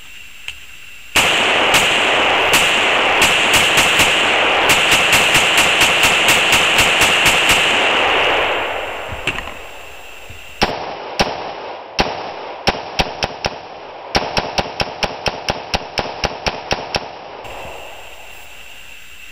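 AR-15 rifle firing a twenty-round magazine dump of 5.56 rounds in rapid strings of shots. The first fast run starts about a second in, over a loud rushing noise. A second run of shots, duller with the top end cut off, starts about ten seconds in.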